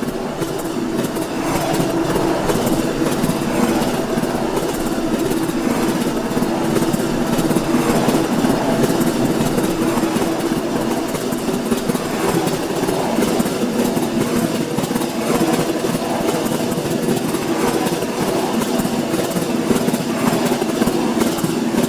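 TG16M diesel locomotive's engine running steadily under a freight train, with a deep, even engine note.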